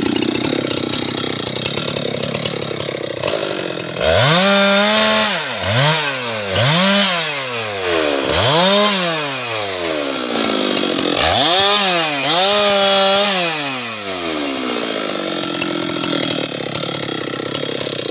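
Husqvarna 390XP two-stroke chainsaw revved hard in about five bursts, each climbing quickly to a high, steady scream and dropping back down between them.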